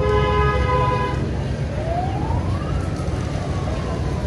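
Street traffic rumbling steadily. A vehicle horn sounds for about a second at the start, then a siren tone rises and slowly falls away.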